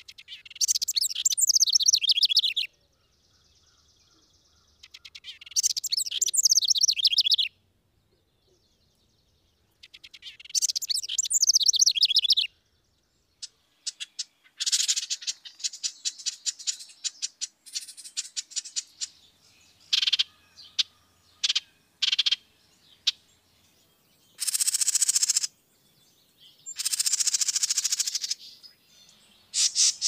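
Dark-eyed junco singing: three rapid trills of about two and a half seconds each, evenly spaced, then a run of quick sharp chip notes and shorter trills in the second half.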